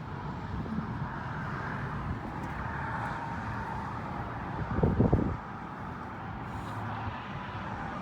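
Steady vehicle and road noise with a low rumble, and a short louder burst of low thumps about five seconds in.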